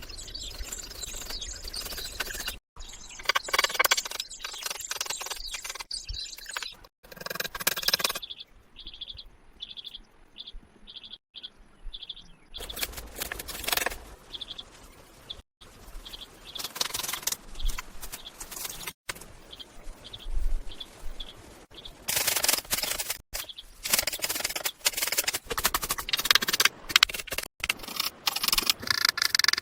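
Outdoor ambience with bird chirps, including a run of about seven evenly spaced high chirps near the middle, broken by abrupt cuts and noisy bursts.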